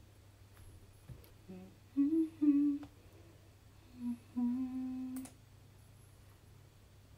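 A woman humming two short phrases of a tune, each note held steady. A sharp click comes about a second in and another as the second phrase ends.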